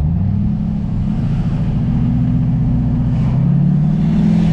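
Pickup truck engine accelerating: its pitch climbs in the first half second and holds at higher revs, then shifts again about three seconds in.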